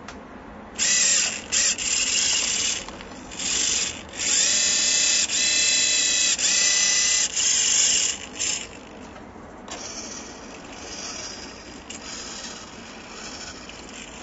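Hobby servos driving a pan-tilt mount, the tilt axis on a geared servo: a run of short, high-pitched motor whines that start and stop abruptly as the mount moves, several rising in pitch as they start. After about eight and a half seconds the whining stops and only a faint hum remains.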